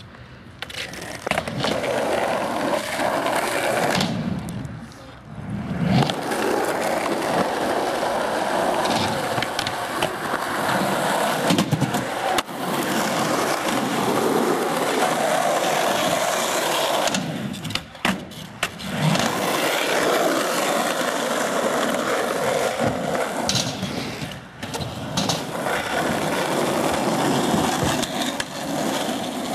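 Skateboard wheels rolling over concrete in a steady grinding rumble that drops out briefly a few times, with several sharp clacks of the board popping and landing.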